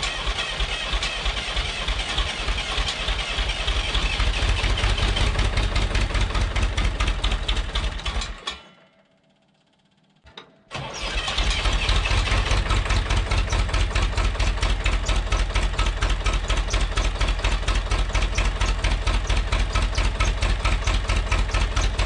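Old Massey Ferguson backhoe's engine on a cold start: cranking and catching, then running with an even, rapid beat that grows louder about four seconds in. A sudden break of about two seconds near the middle, after which the engine runs steadily.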